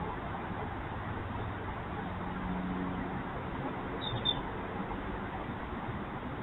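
Steady background hiss picked up by a security camera's microphone, with a brief high chirp about four seconds in.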